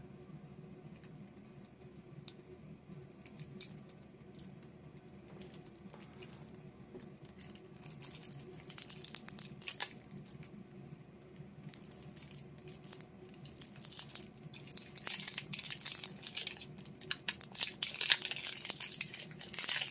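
Plastic shrink-wrap on a deck of trading cards crinkling and tearing as it is picked at and peeled off by hand; scattered faint crackles at first, growing busier and louder over the last few seconds.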